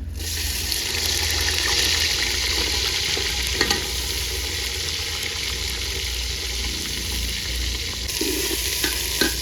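Washed, sliced onions sizzling in hot ghee in a pot, the sizzle starting suddenly as they go in and holding steady. A couple of light knocks sound partway through and near the end.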